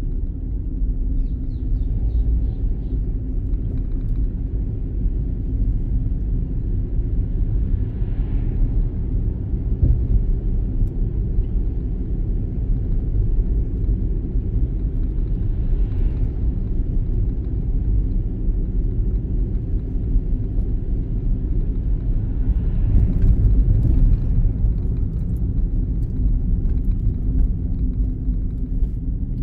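Steady low rumble of engine and road noise inside a car's cabin as it is driven along.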